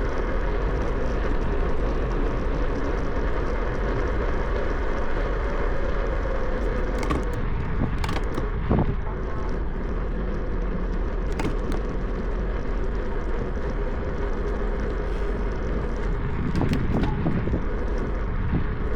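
Steady wind rush and road noise from a bicycle riding along a path, with a few sharp clicks.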